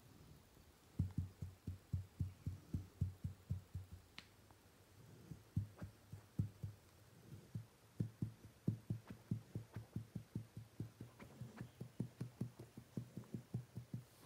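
A hand patting a border collie's body softly and rhythmically, about four dull pats a second, in runs with brief pauses.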